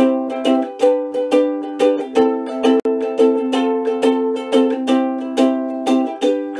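Ukulele strummed in a steady rhythm, its chords ringing and changing every second or two: a newly written, happier original tune played without singing.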